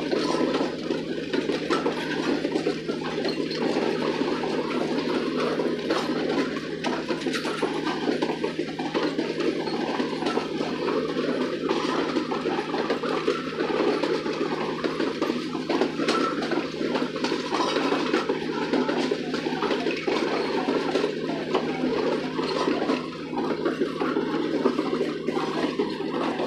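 Sri Lanka Railways passenger coaches rolling past on the track, a steady rumble of wheels on rails with faint scattered ticks.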